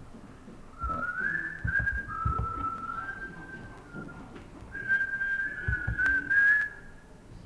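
A person whistling a short tune in two phrases, the pitch stepping up and down, with a few low knocks and bumps underneath.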